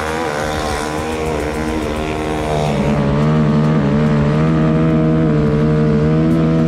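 A dirt bike's engine held at high revs as the bike skims across water, with a hiss of spray over it. About two and a half seconds in the engine note gets louder and steadier.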